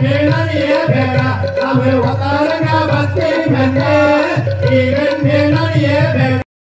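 Tamil Valli Kummi folk song: singing over a steady drum beat, cutting out abruptly just before the end.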